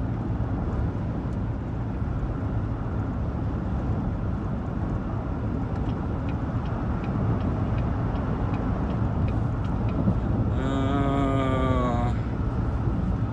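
Steady road and engine noise heard inside a moving car's cabin. About ten and a half seconds in, a single held tone with a buzzy edge sounds for about a second and a half, dropping slightly in pitch.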